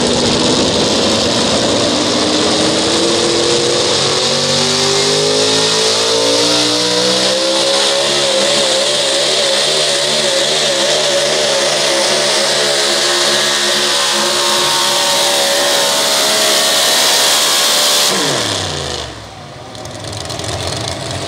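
Supercharged engine of a four-wheel-drive pulling truck at full throttle through a pull. Its pitch climbs steadily over the first several seconds, then holds high with a wavering note. Near the end the revs fall away quickly and the engine drops back to a low run.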